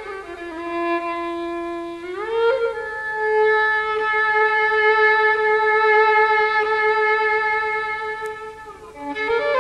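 Solo violin in Persian classical style, bowed: a held lower note slides up into one long sustained note of about six seconds that fades out near the end, and a new phrase starts just before the end.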